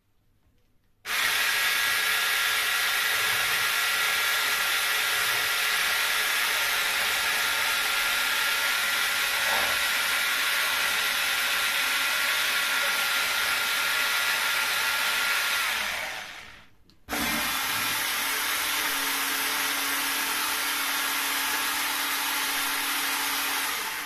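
Electric hand blender with a whisk attachment whipping powdered whipped-cream mix and milk in a tall plastic beaker until it thickens. The motor runs steadily for about fifteen seconds, stops for about a second, then runs again for about seven seconds.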